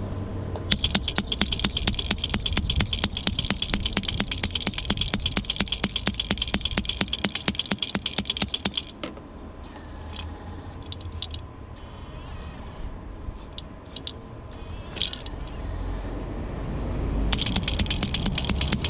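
Electric hammer attachment of an RC model excavator chattering against concrete blocks in a rapid train of sharp taps. It stops at about nine seconds and starts again near the end. In between come a few lighter knocks over a low hum.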